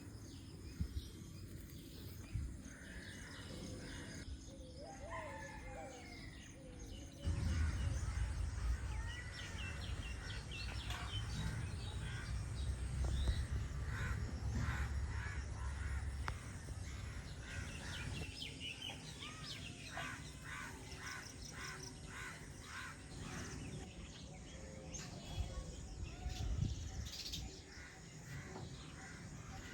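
Several birds calling and chirping at once, with short rising and falling calls. A low rumble starts suddenly about a quarter of the way in and fades off later.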